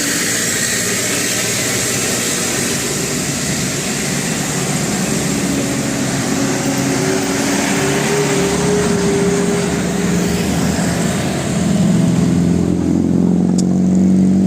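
Vehicle engine and road noise, with a basuri telolet musical horn sounding held notes that change pitch from about halfway through, loudest near the end.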